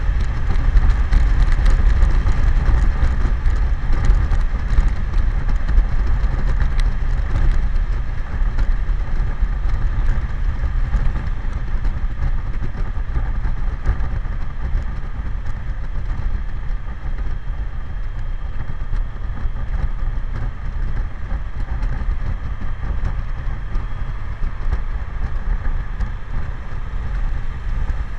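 Wind buffeting the microphone of a helmet camera on a BMW K1100LT at highway speed, a loud steady low rumble, with the bike's inline-four engine humming steadily underneath. The rumble eases slightly about a third of the way in.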